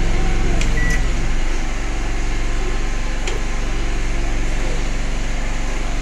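Haier microwave oven running with its outer casing removed: a steady electrical hum. A click and a short beep come just under a second in, and another click about three seconds in.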